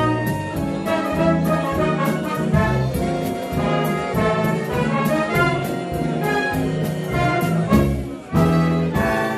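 Live big band of trumpets, trombones and saxophones with rhythm section playing a swing number. Near the end it breaks briefly, then comes in with a loud held chord.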